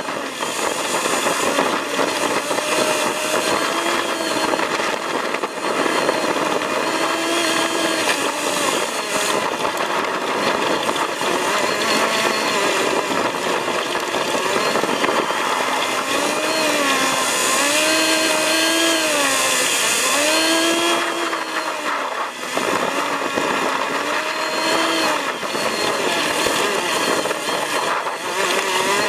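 Off-road vehicle's engine and cabin noise on a rough stony track, played sped up, so the engine sounds high-pitched like a power tool, its revs rising and falling over and over.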